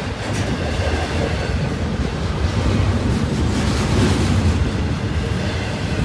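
Double-stack intermodal freight train's container cars rolling past close by: a steady rumble of wheels on the rails that swells slightly about three to four seconds in.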